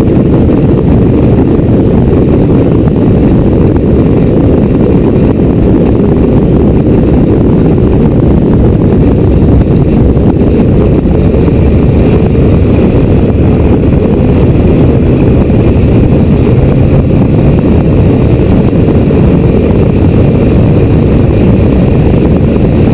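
Race powerboat running steadily at speed, its engine noise mixed with wind rush over the bow-mounted microphone in one loud, unbroken rumble.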